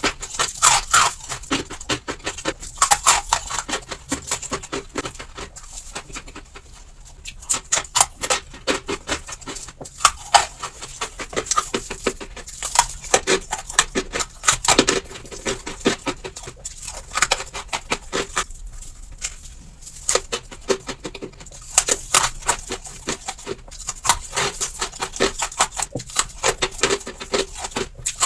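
Refrigerator frost ice being bitten and chewed close to the microphone: a dense run of irregular crisp crunches and crackles, with a couple of brief pauses.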